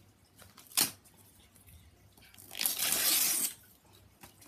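A paper greeting-card envelope being torn open: a short rip a little under a second in, then a longer, louder tear of about a second.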